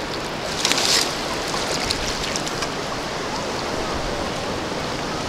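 Shallow surf washing and sloshing, with a short splash a little under a second in as a long-handled sand scoop is driven into the sand underwater.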